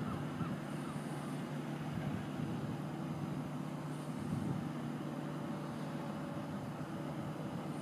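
Heavy diesel engine running steadily with an even low hum.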